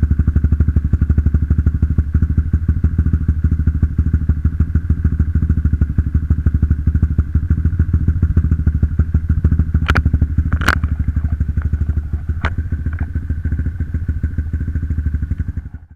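Motorcycle engine idling after a cold start through an aftermarket NOB1 Neo SS exhaust fitted with a dB booster insert: a steady, rapid exhaust pulse. A few sharp knocks sound about ten to thirteen seconds in.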